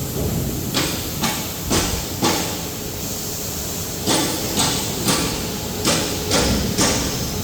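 Band saw paper roll cutting machine running: a steady machine hiss with sharp clacks about two a second, in one run early on and another from about four seconds in.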